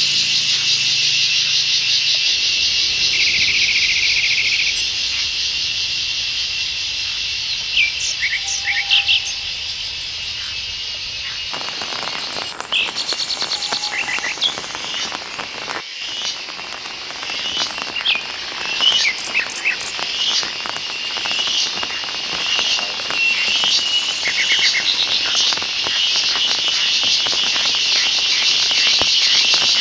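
A dense, steady, high-pitched chorus of forest insects, with short bird chirps scattered through it.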